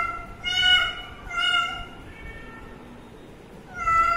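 Cat meowing over and over: high-pitched meows about a second apart in the first two seconds, a fainter one after them, a pause, then another meow near the end.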